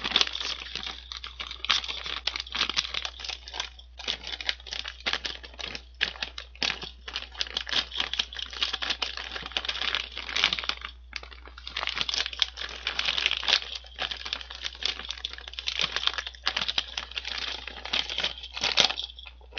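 Plastic potato chip bag crinkling and crackling continuously as hands twist and pull at its top, trying to tear it open. There are a few brief pauses.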